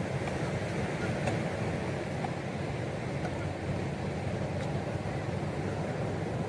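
Steady wind noise buffeting the microphone over the continuous wash of ocean surf.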